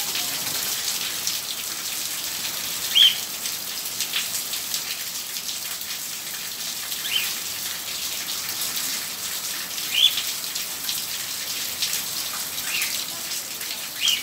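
Steady rain falling on a paved stone courtyard: a constant hiss with fine patter of drops. About five short high chirps from a bird cut through it, a few seconds apart, and are the loudest sounds.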